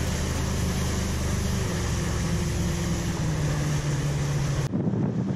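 Outboard motor on an aluminum fishing boat running at speed, with wind and water rushing past the hull over a steady low engine hum. Near the end the rushing hiss cuts off suddenly, leaving the lower engine sound.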